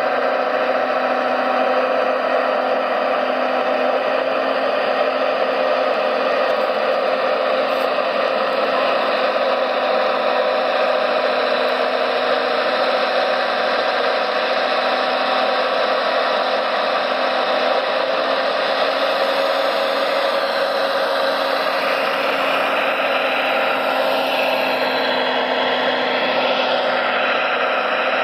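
Steady whirring of radio-controlled model construction machines' small motors, with the pitch rising and falling in the last several seconds.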